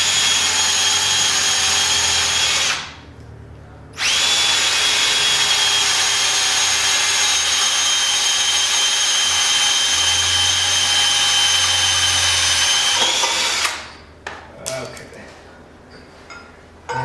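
Power drill drilling a hole in a metal handrail pipe, a steady high whine that stops for about a second near the start, then runs again for some ten seconds before stopping. A few small clicks and knocks follow.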